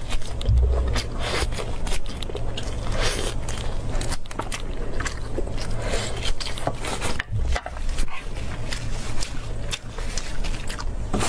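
Close-miked biting and gnawing on a grilled beef rib bone: teeth tearing and scraping meat off the bone with wet, crackling chewing. Two low bumps, about half a second in and again about two-thirds of the way through.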